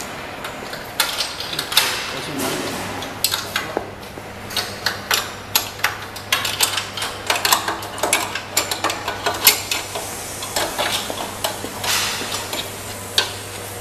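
Irregular metallic clinks, clicks and knocks of parts and tools being handled on the steel frame of a conveyor needle detector, over a steady low hum.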